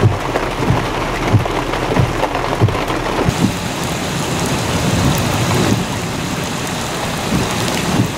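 Heavy rain and strong wind in a thunderstorm: a dense, steady rush with repeated low thumps, most frequent in the first three seconds.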